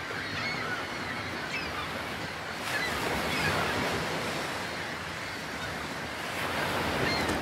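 Ocean waves washing along a breakwater with wind, a steady hiss, with short high chirps coming and going over it.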